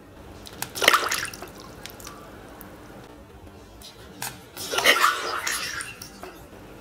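Water splashing in a shallow plastic tub as a hand dips a black diamond stingray in and releases it among small fish: two splashy bursts, about a second in and about five seconds in, with a few drips between.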